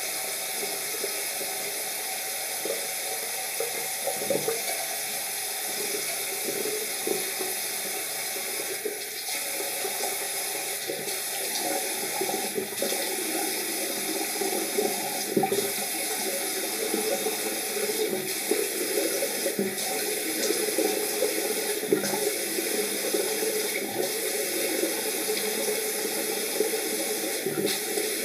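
Tap running steadily into a bathroom sink, with irregular splashing as water is scooped up by hand to rinse the face.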